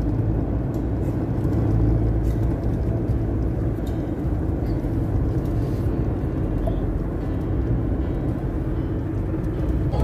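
Steady road and engine rumble of a moving car, heard inside the cabin.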